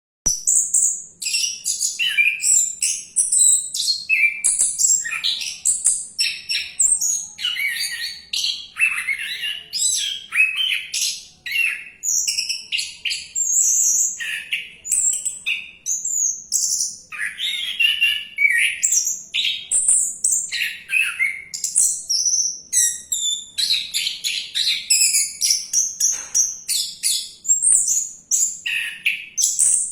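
Orange-headed thrush singing a rapid, varied song of high chirps and whistles, phrase after phrase with barely a pause.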